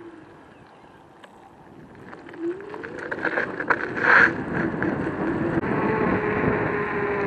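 Joyor S10S electric scooter's hub motors whining, the pitch rising as it pulls away from a slow turn and then holding almost steady. Wind rushes over the microphone, growing louder with speed, with clicks and a brief loud rush of wind about four seconds in.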